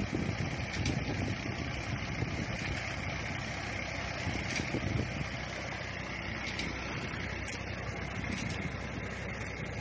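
Water gushing steadily from a tubewell's delivery pipe into a concrete tank, over the constant running of a Massey Ferguson 240's three-cylinder diesel engine driving the pump through a shaft and belt.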